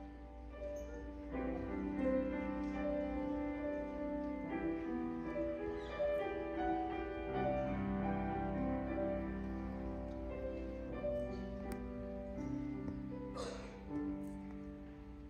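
A large mixed choir singing with grand piano accompaniment: slow, sustained chords that change every few seconds. A brief noise cuts in near the end.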